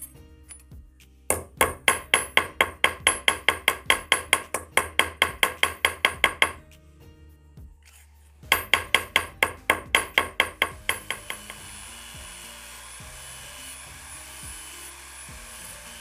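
A small hammer tapping rapidly on a steel folding-knife liner laid on a steel block, about five sharp metallic blows a second in two runs. After that comes a spinning brush wheel on a rotary tool rubbing the rusty blade, a steady hiss with a thin high whine.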